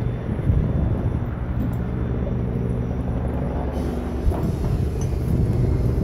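A steady low mechanical hum, like an engine or motor running, over a rumbling background; a short knock sounds about four seconds in.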